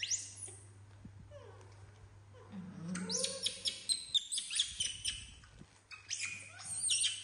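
Baby macaques squealing: a quick rising squeak at the start, then from about three seconds in a run of short, high-pitched squeals and chirps in quick succession. A steady low hum sits underneath.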